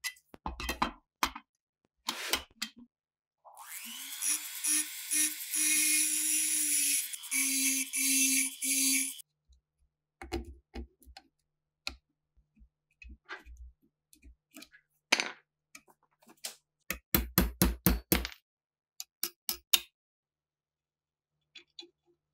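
Workshop handling of metal parts: scattered sharp clicks and knocks. A small power tool runs in short on-off bursts for about five seconds, and near the end comes a quick run of about half a dozen sharp clicks.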